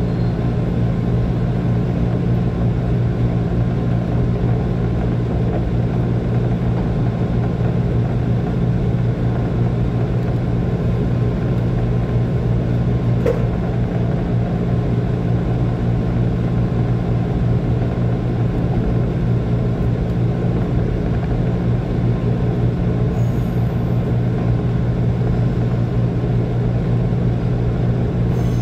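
Steady running noise of a JR 185 series electric train heard from on board: a constant low hum and rumble as it rolls along, with a single faint click about thirteen seconds in.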